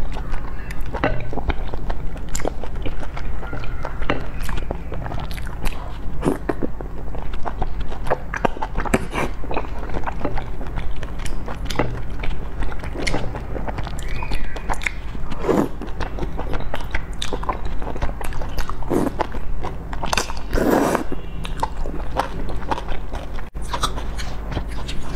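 Close-up eating sounds: wet chewing and lip smacks, with several longer slurps of noodles and spicy broth, the loudest about twenty seconds in.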